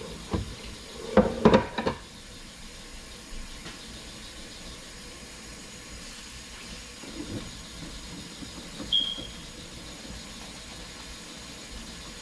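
Dishes and a pan clattering in a kitchen sink for the first couple of seconds, then a kitchen faucet running steadily as dishes are rinsed under it, with a few soft knocks and a short high squeak about nine seconds in.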